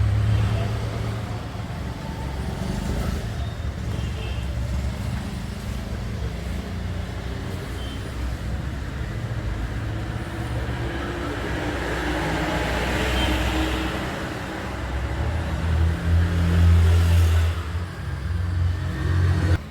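Motorcycle engine running steadily with a low rumble, growing louder for a couple of seconds near the end.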